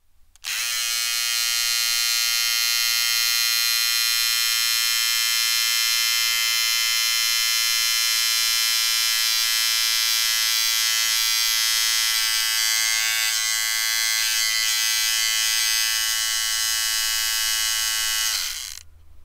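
Electric beard trimmer switched on, buzzing steadily with a high, even hum, then switched off near the end, its pitch sagging briefly as the motor runs down.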